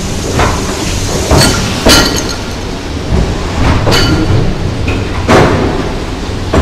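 Talgo 'Strizh' passenger train rolling slowly over a gauge-changing installation, heard from between the rails beneath it: a steady low rumble with several sharp metallic clanks and clinks at uneven intervals as the wheelsets pass through. The wheels are being shifted from 1435 mm to 1520 mm gauge.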